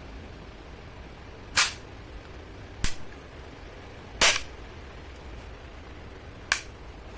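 Tokyo Marui Mk23 spring-powered airsoft pistol firing four single shots, each a short sharp snap, spaced unevenly about one to two seconds apart.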